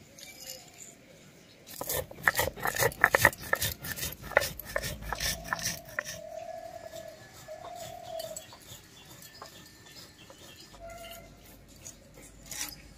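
Fried dried red chillies and panch phoron being crushed on a stone grinding slab: a quick run of crisp crackling and knocking in the first few seconds. A few short wavering animal calls follow in the middle.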